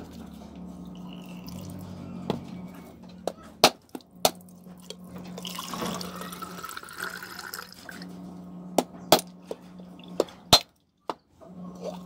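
Bolo knife blade striking the hard shell of a mature coconut in a series of sharp knocks to crack it open. In the middle, coconut water pours into a bowl with a rising pitch as it fills, and a steady low hum runs underneath.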